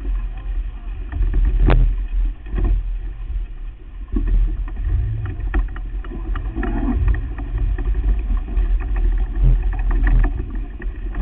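Wind buffeting the microphone aboard a sailboat underway: a heavy, uneven low rumble with water hiss, broken by scattered sharp clicks and knocks.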